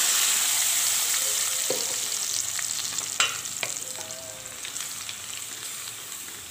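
Blended masala paste sizzling hard in hot butter in a kadhai, the sizzle dying down steadily as the paste cools the fat. A wooden spatula stirs through it, with a few sharp clicks and scrapes against the pan about three seconds in.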